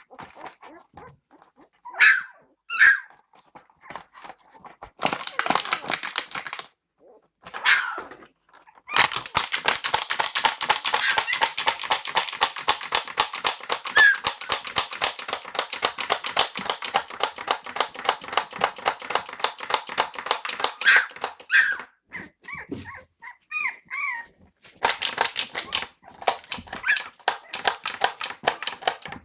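17-day-old Australian Cattle Dog puppies whimpering and yelping in short high cries, alongside a rapid, dense clattering noise made to test their hearing and reaction. The clatter starts about nine seconds in, runs for about twelve seconds, and comes back near the end.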